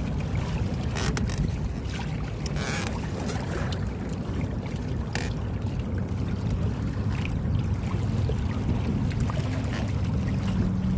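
Wind buffeting the microphone and water washing along the inflatable hulls of a small Minicat catamaran under sail: a steady low rumble with a few short crackles.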